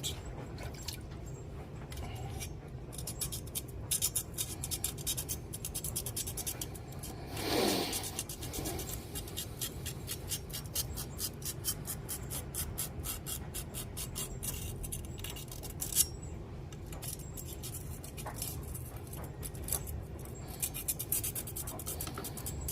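A small hand-held sharpening stone scraping along a steel machete blade in quick repeated strokes. There is a brief falling whine about eight seconds in and a single sharp click a little past halfway.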